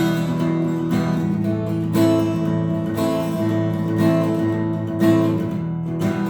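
Acoustic guitar strummed with a pick in a galloping rhythm: bass strings struck first, then all strings hit on the strong beat, with a strong stroke about once a second.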